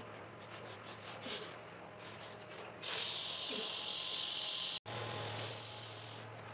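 Carpet-cleaning hot-water extraction tool hissing loudly for about two seconds as it sprays and sucks, cutting off suddenly, then a fainter hiss over a low hum.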